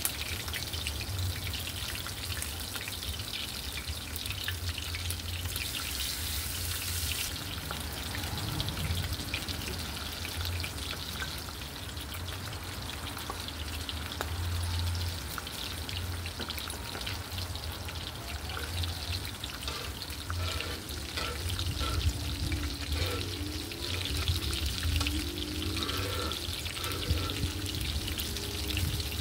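Oil sizzling and crackling steadily as food fries in a cast-iron skillet, with a continuous fine spatter of small pops.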